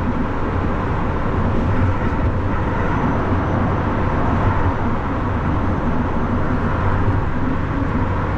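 Steady motorway driving noise: a continuous rush of road and wind noise over a low, even drone, with no change in pace.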